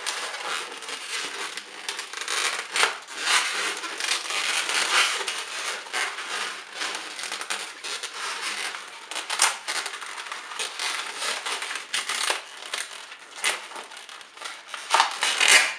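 Inflated latex modelling balloons rubbing against one another as the balloon's end is pushed through the centre of a twisted-balloon rose and pulled out the other side: a continuous rubbing rustle broken by many sharp clicks.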